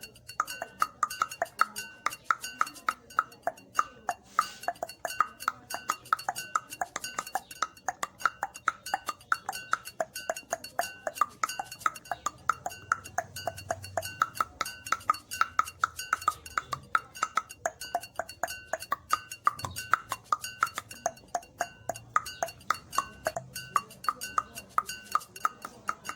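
Rapid, rhythmic tongue clicks made with the mouth, several a second, each with a hollow, woodblock-like pop.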